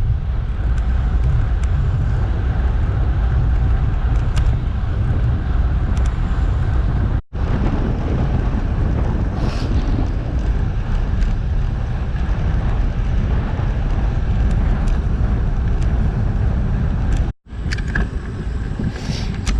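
Wind rushing over an action-camera microphone while riding a bicycle at speed: a steady, loud rush heaviest in the low end. It cuts out abruptly twice.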